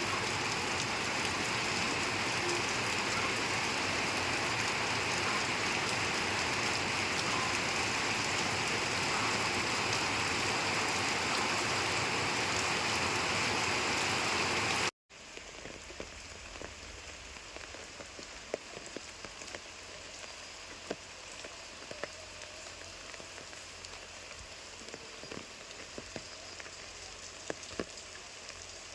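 Rain falling: a loud, even downpour hiss for the first half, then, after a brief cut, lighter rain with separate drops clicking and tapping clearly above a softer hiss.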